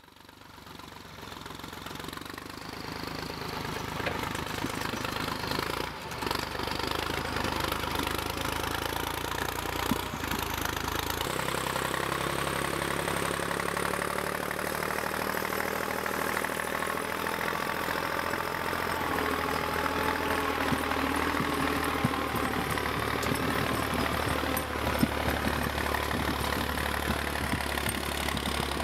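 Farm tractor's diesel engine running steadily while it pulls a log-loaded forestry trailer through snow. The sound fades in over the first few seconds, and the engine note shifts abruptly a few times, most plainly about eleven seconds in.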